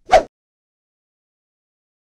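A single short, sudden sound lasting a fraction of a second just after the start, followed by complete silence.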